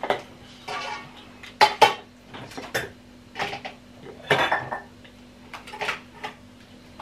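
Dishes and kitchen utensils clinking and knocking as they are moved about, in irregular sharp clatters a second or so apart.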